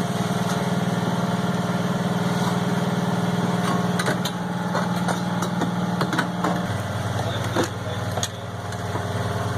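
Portable V-twin generator engine running steadily; its low note shifts about two-thirds of the way through. A few sharp metal clicks and knocks sound over it.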